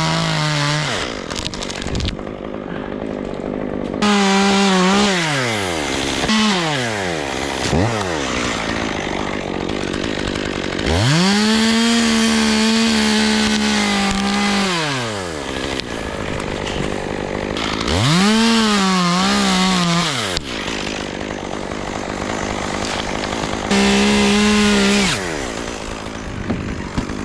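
Chainsaw revved up again and again, in bursts of one to four seconds, dropping back toward idle between them. The longest run at full throttle, near the middle, is steady, as when cutting through wood.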